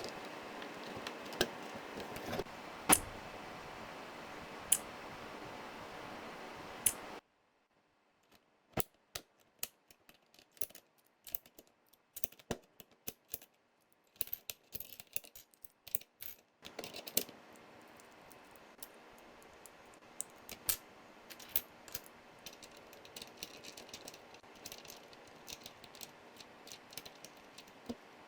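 Scattered plastic clicks and keystrokes on a Royal Kludge RK100 mechanical keyboard with tactile brown switches, irregular and several a second at times. A steady background hiss drops away about seven seconds in and returns a few seconds before the end.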